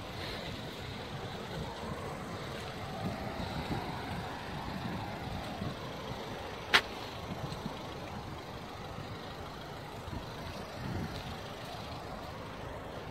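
Road traffic running and idling at a level crossing, a steady background rumble. One sharp click stands out just past the middle.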